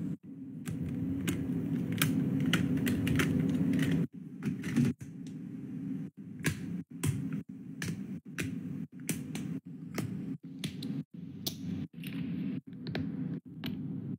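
Hands handling hard plastic phone cases: a run of irregular sharp clicks and taps as cases are picked up, tapped and snapped onto a phone, over a low steady hum.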